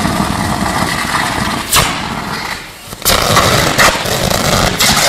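High-voltage electrical arcing on an electric train's roof, where a fallen overhead power line is shorting across the pantograph sections. A continuous loud crackling buzz is broken by four sharp bangs, the first a little under two seconds in and the last near the end.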